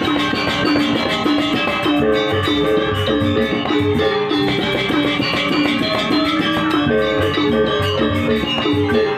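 Balinese gamelan music: bronze metallophones playing a brisk, repeating melodic pattern over drums.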